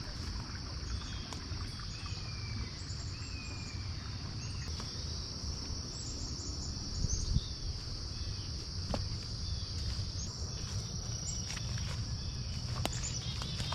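Steady high-pitched chorus of insects, typical of crickets, over a low rushing noise, with a few faint short chirps and scattered light clicks.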